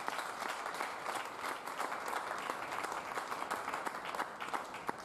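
Audience and players applauding, a dense steady clapping that begins to thin out near the end.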